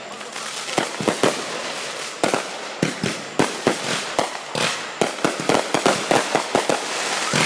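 Fireworks going off: a string of sharp bangs and crackles over a hiss, coming faster and closer together in the second half.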